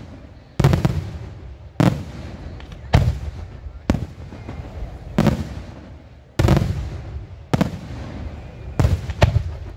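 Fireworks display shells bursting in a steady run of about nine loud bangs, roughly one a second, each followed by a low rumbling echo that dies away before the next; the last two come close together near the end.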